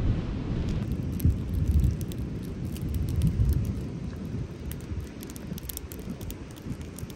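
Wind buffeting the microphone with a steady low rumble, over small, sharp, irregular crackles from a freshly lit kindling fire.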